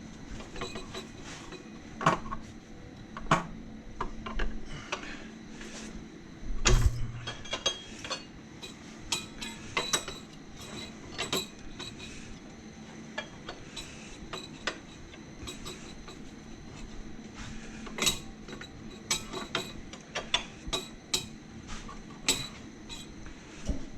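Scattered metallic clicks and taps of hand tools on an Audi 2.6 V6 engine as it is turned over by hand and a camshaft alignment tool is fitted, with one heavier thump about seven seconds in.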